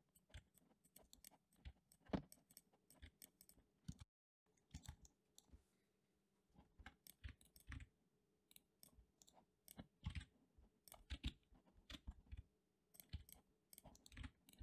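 Faint, scattered clicks of a computer mouse and keyboard keys, with a brief drop to dead silence about four seconds in.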